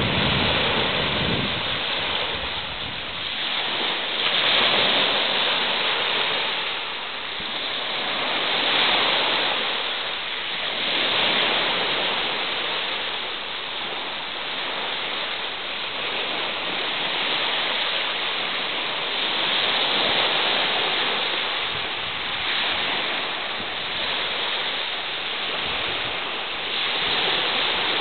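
Small waves breaking and washing over a pebble beach: a steady hiss of surf that swells and fades every few seconds.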